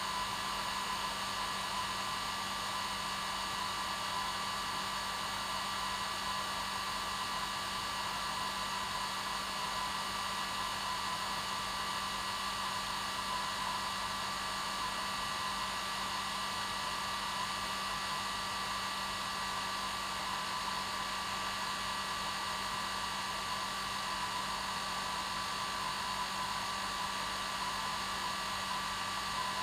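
Hair dryer running steadily: an even hiss of blown air with a constant motor hum, unchanging throughout.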